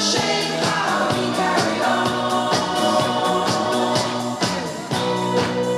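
Dance music with a steady beat, about two beats a second, accompanying a line dance.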